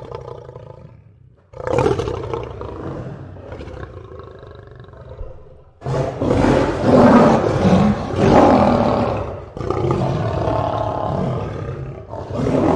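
Male lion roaring, a run of long, loud roars separated by short breaks, the loudest in the middle.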